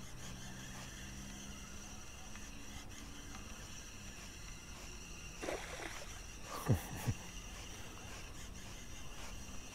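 Spinning reel being cranked at a steady pace to work a topwater lure, over quiet lakeside background. Two short sounds that fall in pitch stand out about seven seconds in, with a fainter one just before them.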